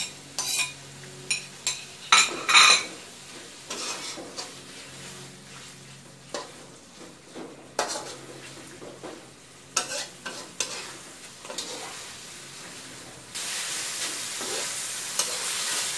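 Metal spatula scraping and knocking against a wok as pork belly pieces are stirred into curry paste frying in coconut cream, over a low sizzle. About thirteen seconds in, the sizzling becomes louder and steady.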